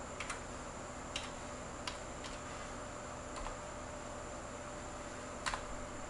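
Computer keys clicking one at a time, about seven scattered presses with the loudest near the end, over a faint steady high whine.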